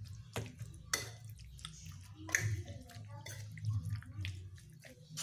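Metal spoon stirring raw beef chunks in a spice marinade in a ceramic bowl: wet squelching of the meat and a series of sharp clinks of the spoon against the bowl, over a low steady hum.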